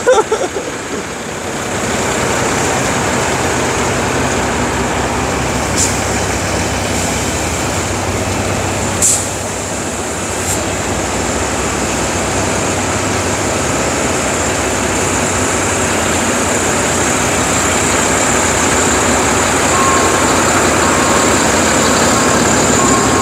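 A concrete mixer truck's diesel engine runs steadily with a loud, even noise. Three brief sharp sounds cut through it partway in.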